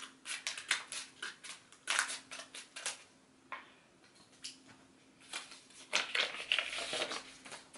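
Scissors snipping through a children's book's packaging, a quick run of sharp cuts over the first three seconds. Later the wrapper crackles and rustles for about two seconds as it is handled.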